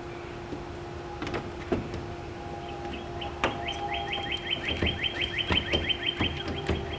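A bird sings a fast, even trill of rising chirps, about seven a second, starting about two and a half seconds in and lasting some four seconds. Under it run a steady low hum and scattered knocks from a window being fitted into a door.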